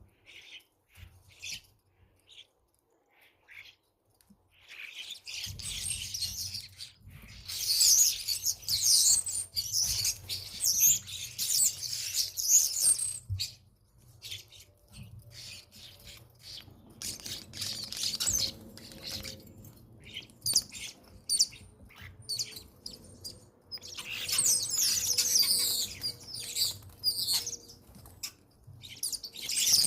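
Common starlings chattering and squabbling at a bird feeder: dense, rapid, high-pitched calls coming in bursts, loudest in two spells about eight and twenty-five seconds in. A low rumble runs underneath from about five seconds in.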